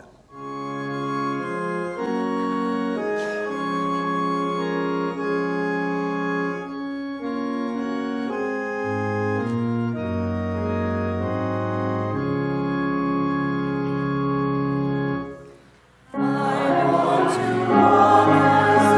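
Organ playing slow held chords that change every second or two, stopping about fifteen seconds in. A choir begins singing, with the organ, a second later.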